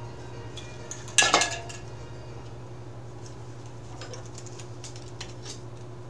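Spray-paint cans clattering together once, about a second in, then scattered light clicks and rattles of cans and caps being handled, over a steady low hum.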